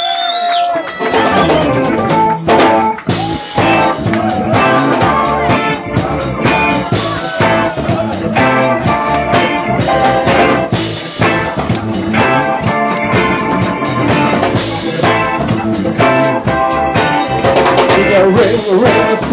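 Live rock band playing an instrumental passage: electric guitar and drum kit, loud, with a steady even beat.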